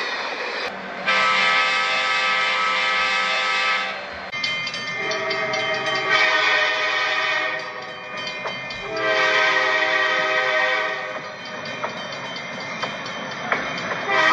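Nathan K5LA five-chime air horn on an Amtrak F40PH diesel locomotive sounding three long blasts, the first about a second in and the last ending about three seconds from the end. The train's running noise carries on between and after them.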